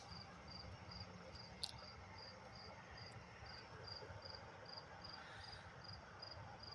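A cricket chirping faintly in an even rhythm, two to three short high chirps a second, with one brief click about a second and a half in.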